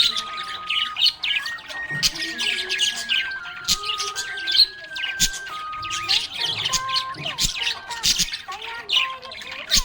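Budgerigars chirping and squawking in a rapid, continuous chatter, over a simple background melody of held notes.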